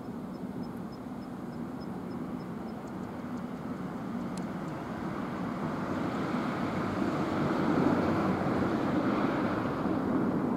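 A vehicle passing by: a steady rushing noise that grows louder to a peak about eight seconds in, then begins to fade.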